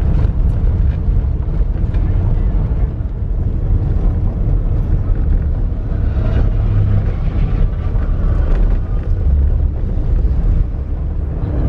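Wind buffeting the microphone, a loud uneven low rumble, with faint voices of people in the field behind it.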